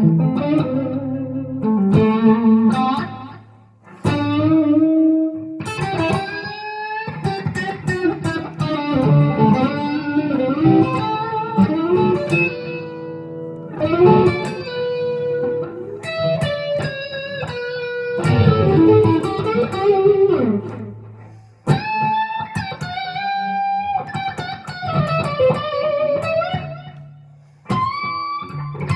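Electric lead guitar from an Epiphone Les Paul Custom with Gibson 490 humbuckers, played in single-note phrases with bends and slides and a few short pauses between phrases. It is on the neck pickup with the volume rolled back, the treble bleed keeping the tone bright.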